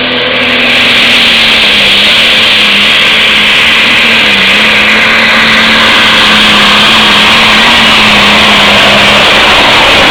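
A Murray garden tractor's engine runs flat out under load while pulling a sled. It is very loud and steady, and its pitch wavers and sags slightly as it works.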